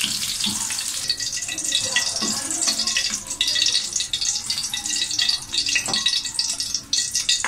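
Green chillies sizzling and crackling in hot mustard oil in an aluminium karahi as they are scooped out with a slotted spoon, with a few taps and scrapes of the spoon against the pan.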